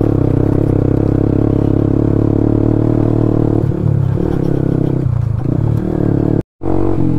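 Motorcycle engine running at low speed over a rough, stony dirt track, with clatter and rattling from the bike over the bumps. The engine note changes a few times midway as the throttle is worked, and the sound cuts out completely for a moment near the end.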